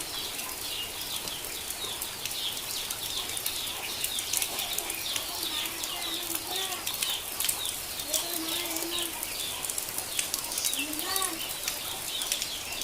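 Ducklings peeping rapidly and continuously in the rain, with many sharp drips or splashes. A few lower, longer calls come in the second half.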